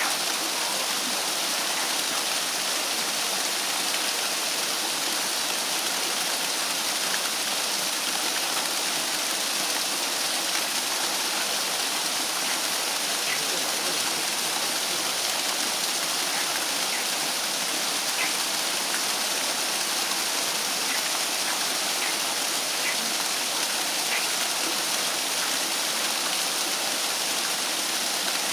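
Hot-spring water pouring steadily from a waterfall into a pool and spilling over the pool's stone wall onto the rocks below: a constant, even rush of falling and splashing water.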